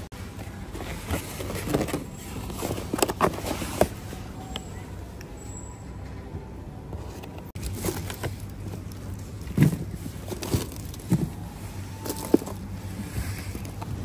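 Plastic produce packaging and a mesh bag of vegetables crinkling and knocking as they are handled at a shopping cart: a scatter of irregular short knocks and crackles over a steady low hum.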